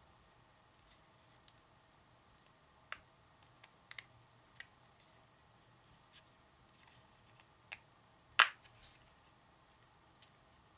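Scattered small clicks and taps of a hard plastic battery box and its fittings being handled, with one sharper, louder click about eight seconds in.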